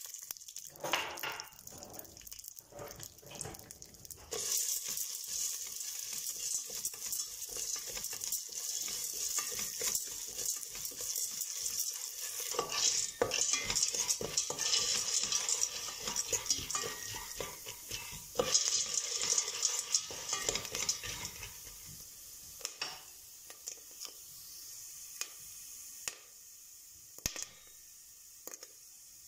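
Popcorn kernels heating in oil in a stainless steel pot: the oil sizzles while a spoon stirs the kernels, rattling and scraping them against the pot. The sizzle fades after about twenty seconds, and near the end there are a few single sharp clicks as the first kernels pop.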